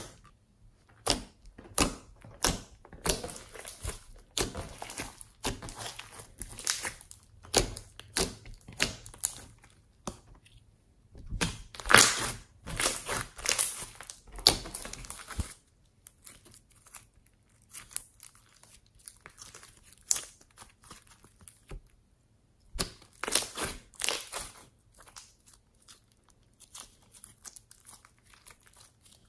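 Hands squishing, folding and stretching a large mass of glossy slime, making irregular sticky pops, crackles and tearing sounds. The pops come thickest about twelve seconds in and again near the end, with a fainter spell between.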